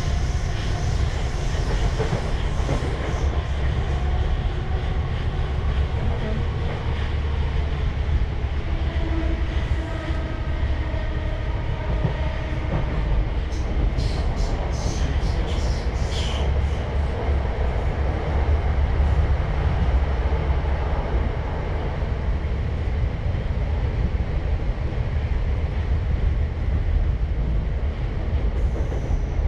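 Passenger train running between stations, heard from inside the carriage: a steady low rumble of wheels on rails and running gear, with a quick run of sharp clicks about halfway through.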